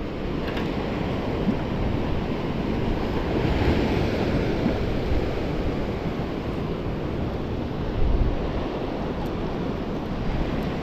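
Sea waves washing against a rocky shore, with wind buffeting the microphone. The surf swells up about four seconds in, and a gust thumps on the microphone about eight seconds in.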